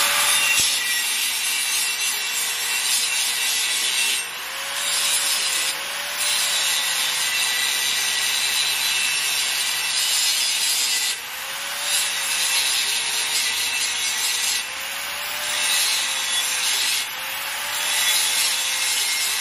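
Angle grinder grinding steel, the disc pressed into a pipe weld's root pass to cut out a cold-lapped spot. Its motor pitch sags under load and recovers, and the grinding drops off briefly about four times as the disc is eased off the metal.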